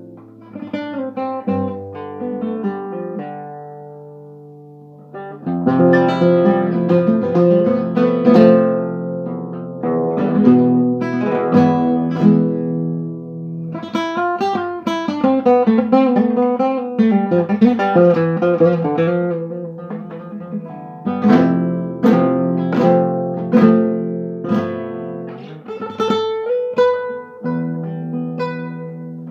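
Acoustic guitar playing an instrumental piece, plucked notes and strummed chords, with a quieter ringing-out passage a few seconds in before fuller playing resumes.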